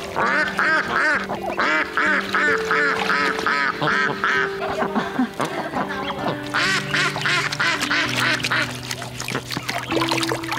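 Domestic ducks quacking in quick runs of short calls, about four a second, in three bursts.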